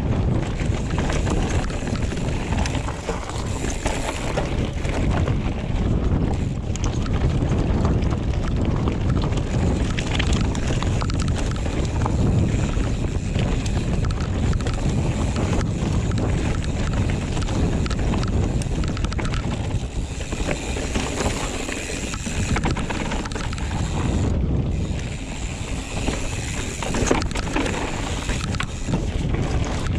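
Wind buffeting an action camera's microphone along with the steady rush of a mountain bike's tyres on a dirt trail, broken by scattered knocks and rattles from the 2022 Giant Trance X 29 on a fast descent.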